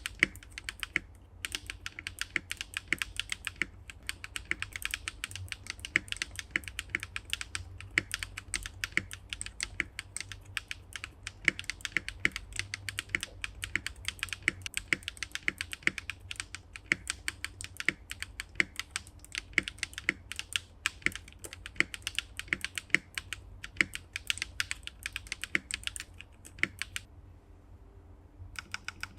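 Continuous fast typing on a Swagkeys Eave65 mechanical keyboard fitted with BSUN RGY switches, a polycarbonate plate, ABS keycaps and no sound-dampening foam: a rapid, uneven stream of sharp keystroke clacks, with a longer pause near the end.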